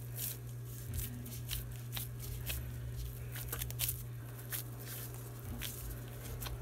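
Raw ground-beef meatloaf mixture being patted and squeezed into a loaf between hands in disposable plastic gloves: soft, irregular wet pats and squishes, a little over one a second. A steady low hum runs underneath.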